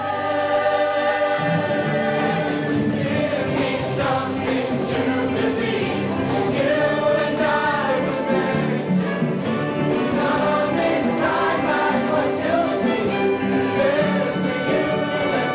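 Mixed-voice high school show choir singing in harmony during a choreographed number; the lower parts come in about a second in and the full chorus carries on steadily.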